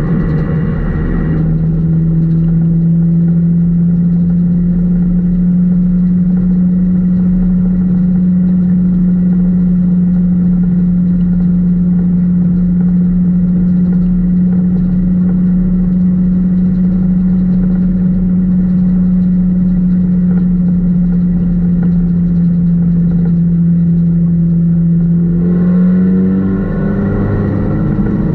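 Four-cylinder dirt-track race car's engine, heard from inside the cockpit, running at a steady pitch for most of the stretch. Near the end its pitch steps up and wavers as the throttle changes.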